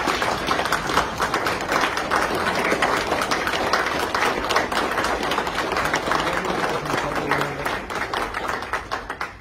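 Audience applauding: many people clapping steadily, the applause thinning and fading out near the end.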